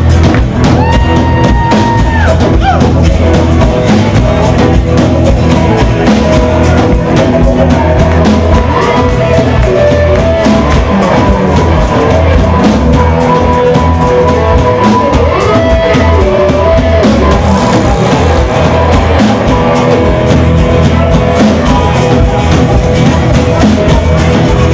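Live rock band playing an instrumental break: drum kit and bass keep a steady beat while a lead line plays held notes that bend and slide in pitch.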